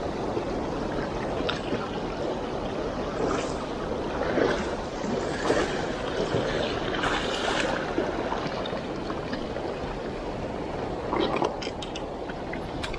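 Shallow river rushing over a cobble bed, with irregular close splashes and knocks scattered through.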